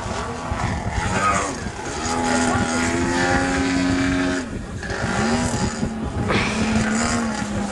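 DA-170 two-stroke petrol engine of a large RC Yak 55M aerobatic plane running on varying throttle. It holds a steady high note for a couple of seconds, drops away about four and a half seconds in, then picks up again.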